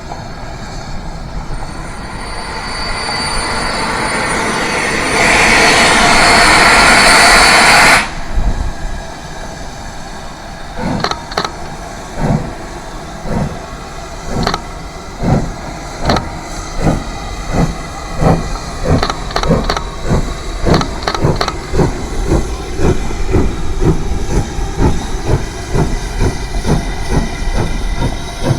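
A train passing close by, its rushing noise swelling and then cutting off abruptly about eight seconds in. Then a train's wheels click over the rail joints in a long, steady clickety-clack, the clicks coming in pairs.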